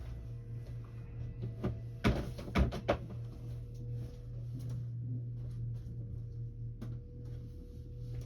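A few sharp knocks in quick succession about two to three seconds in, and one more near the end, over a steady low hum.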